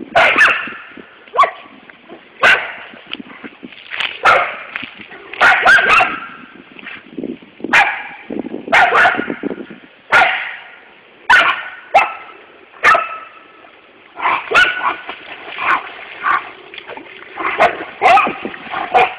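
Siberian husky yipping and whining over and over, short pitched cries about once a second.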